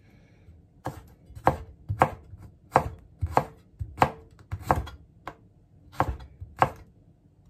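Kitchen knife slicing garlic cloves on a cutting board: a steady series of about ten knocks of the blade on the board, roughly one every half second.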